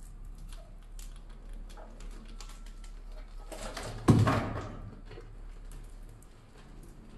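The hinged plastic platform of a bucket mouse trap tips under a mouse, which drops into the plastic bucket with one loud thump about four seconds in. Light scratching and clicking of mice's claws on the trap and in the bucket around it.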